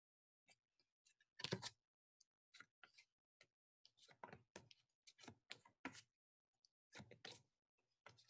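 Near silence, broken by faint, irregular clicks and taps of a pack of phonics flashcards being handled and flipped through.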